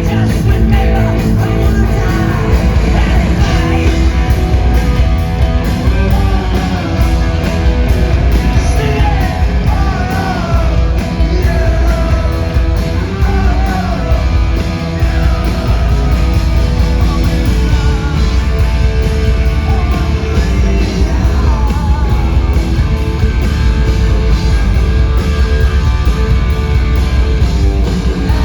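Punk rock band playing live at full volume: a sung, shouted lead vocal over loud bass, guitars and drums, with a steady pulse of cymbal hits.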